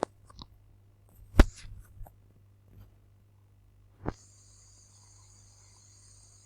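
A few sharp clicks and knocks from handling a computer mouse and desk, over a steady low electrical hum. About four seconds in a steady high hiss starts and runs on to the end.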